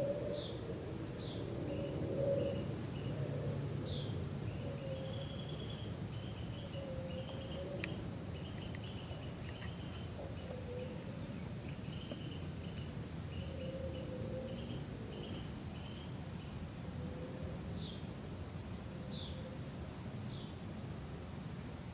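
Small birds calling in winter woods: short high chirps repeated every second or so, and a run of quicker, lower chirping notes through the middle, over a steady low rumble of background noise. A single sharp click sounds about eight seconds in.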